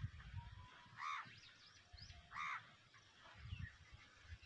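Two short, harsh crow caws about a second and a half apart, faint, with a few faint higher bird chirps and a low rumble underneath.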